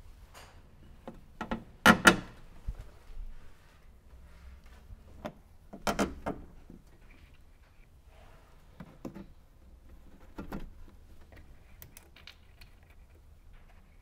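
Plastic push-in retainer clips being snapped into a trunk lid liner by hand: a series of separate sharp clicks and knocks. The loudest is a double snap about two seconds in, with another double around six seconds and lighter clicks later.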